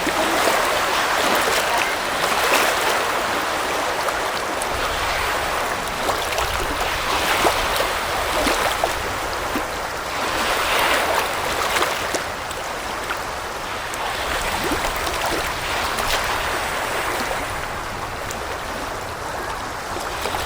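Black Sea surf washing onto the beach: a steady rush of water that swells and eases as each wave comes in, every few seconds.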